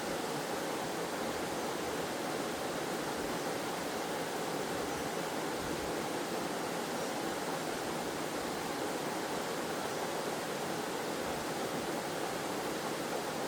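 Waterfall and flowing stream water, a steady even rush.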